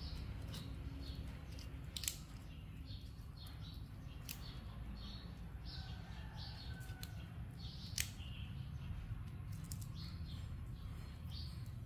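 Fresh red flowers being pulled apart by hand: sharp snaps of stems breaking and soft tearing and rustling of petals, a few clear snaps among many small rustles, over a steady low hum.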